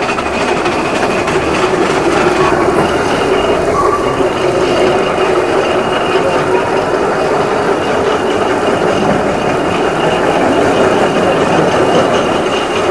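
Steady mechanical running noise with a constant low hum and a higher whine, unbroken throughout.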